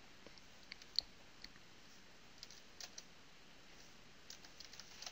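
Faint computer keyboard typing and clicks: a dozen or so short, irregularly spaced keystrokes, the loudest about a second in.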